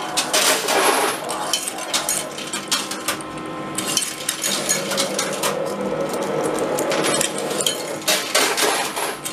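Metal coins clinking and clattering inside a coin pusher arcade machine as coins drop onto the playfield and the pusher shelf slides, with louder bursts of clatter near the start and near the end.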